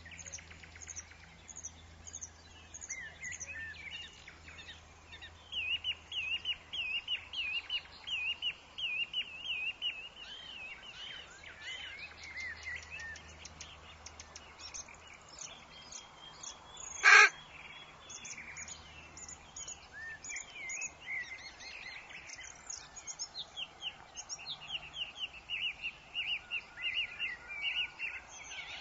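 Woodland birds chirping, with many quick repeated chirps in runs, and one loud, sharp, brief sound about two-thirds of the way through.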